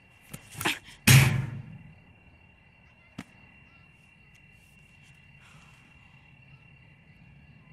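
Cartoon sound effects: a short burst, then a much louder sudden burst about a second in that dies away over half a second, and one sharp click a couple of seconds later. A faint steady high tone lies underneath.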